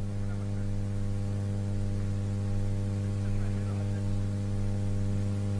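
Steady low electrical mains hum with faint buzzing overtones.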